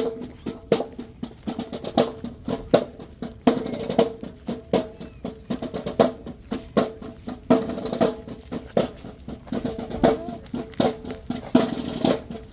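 Marching band drumline playing a cadence: snare drums with rolls over bass drum strokes, in a steady, driving rhythm.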